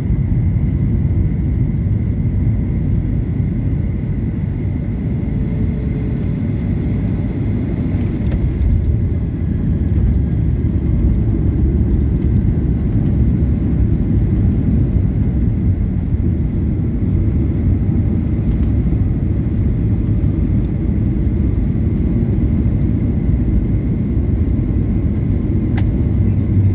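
Steady low rumble of an airliner on landing or taxiing after touchdown, with a faint steady high tone.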